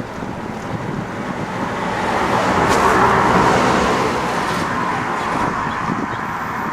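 A motor vehicle passing on the road: engine and tyre noise swells to a peak about three seconds in and then fades.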